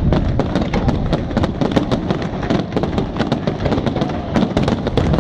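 Fireworks display: a dense, continuous barrage of bangs and crackles, many reports a second, over a steady low rumble.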